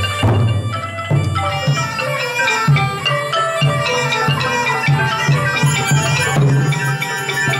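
Khmer pinpeat ensemble playing: a reedy sralai oboe melody over roneat xylophones, with strokes on the sampho barrel drum and the skor thom drums.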